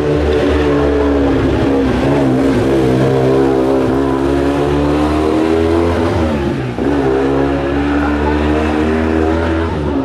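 Steyr Puch 650T rally car's air-cooled flat-twin engine revving hard as the car accelerates past and away. The engine note rises and falls through the gears, with a short dip about two-thirds through before it climbs again.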